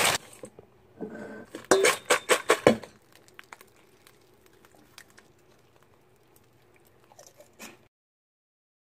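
Pork rinds tossed in a stainless steel pot, clattering and rattling against the metal in a quick run of sharp knocks about two seconds in, then only faint light clicks.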